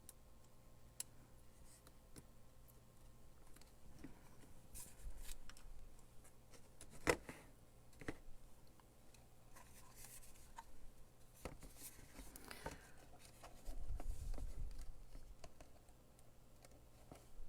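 Scattered clicks and scrapes of small plastic diffuser parts being handled and fitted together, with two sharper clicks about seven and eight seconds in and a few dull handling bumps.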